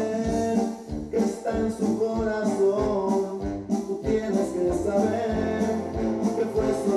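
Cumbia music played over a sonido sound system: a steady bass beat with a melody and singing above it.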